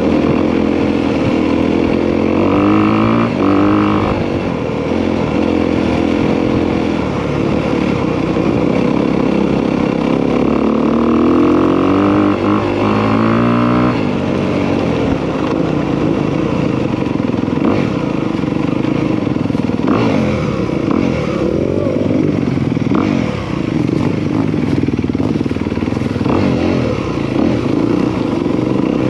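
Honda CRF250R's single-cylinder four-stroke engine under way on a dirt bike, the revs climbing twice in the first half as the throttle opens and dropping back, then rising and falling unevenly with the throttle.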